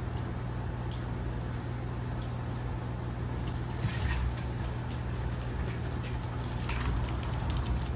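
Steady low mechanical hum with a hiss, as from a household fan or appliance, with a few faint scuffs and clicks about four seconds in and again near the end.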